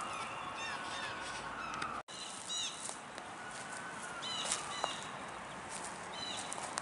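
Small birds chirping outdoors in short, quick, repeated calls, several clusters after about two seconds in. Before that, a distant emergency siren wails, rising and falling slowly, with the sound cutting out for an instant at an edit.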